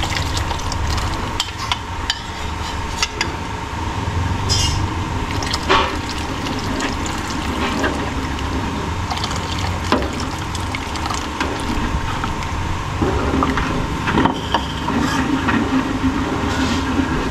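Thick palabok sauce boiling and bubbling in a wide pan as a cornstarch-in-water slurry is poured in and stirred to thicken it. Metal spoon and ladle clink against the bowl and pan now and then.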